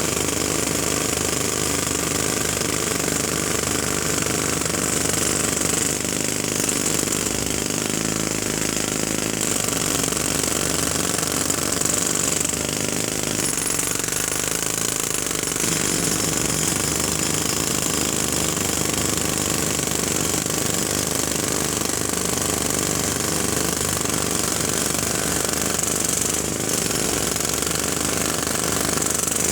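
Jackhammer hammering loudly and continuously, with no pause.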